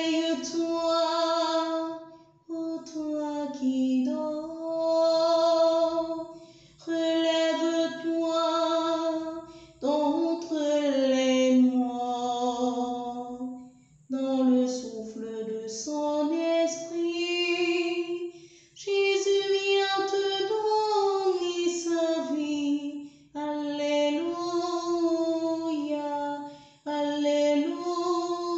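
A woman singing a French Easter resurrection hymn solo and unaccompanied, in phrases of two to four seconds with short breaths between them.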